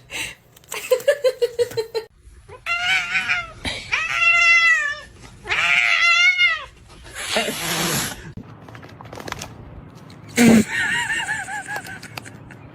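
A cat yowling: three long, wavering calls one after another, then another wavering call near the end.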